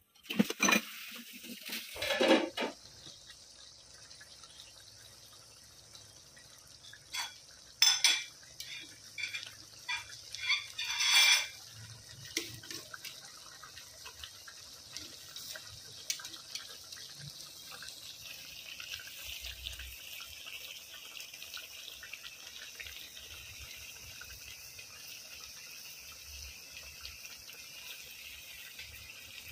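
Mackerel tuna pieces simmering in soy sauce in a pan, giving a steady sizzling hiss. A spatula scrapes and knocks against the pan in short spells, first in the opening seconds and again from about seven to eleven seconds in.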